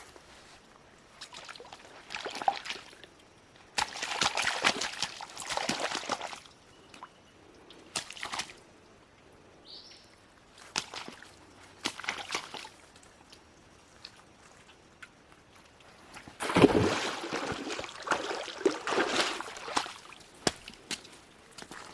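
Shallow creek water sloshing and splashing in irregular bursts as someone wades or steps through it.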